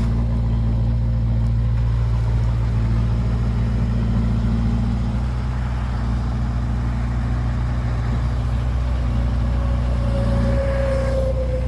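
Diesel engine of heavy earthmoving machinery running steadily at low revs. A faint whine comes in near the end, slowly falling in pitch.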